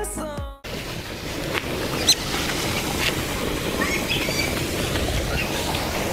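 Outdoor wind rumbling on the microphone, with a few short bird chirps about two and four seconds in. The tail of background music cuts off half a second in.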